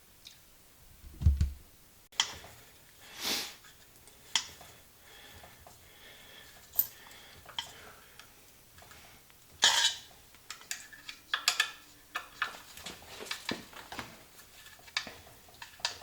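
Metal tools and parts clinking and knocking as they are handled, in scattered taps with a low thump about a second in and a busier run of rattling in the second half.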